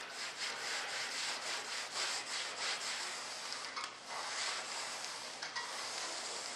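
Hand rubbing mold-release wax onto a mold, a continuous scratchy scrubbing made of quick back-and-forth strokes.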